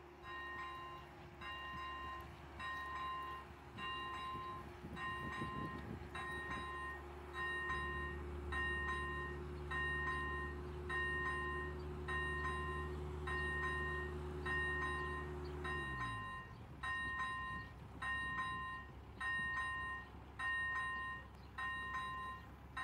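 Czech level-crossing warning bells (AŽD ZV-01 electronic bells) ringing at a steady rhythm, a little over one stroke a second, signalling that the crossing is closed for an approaching train. Under them an idling engine runs steadily, then winds down and stops about 16 seconds in.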